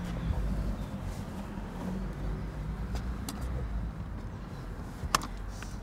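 Low steady rumble with a few light handling clicks, then one sharp click about five seconds in as a baby car seat's harness buckle snaps shut.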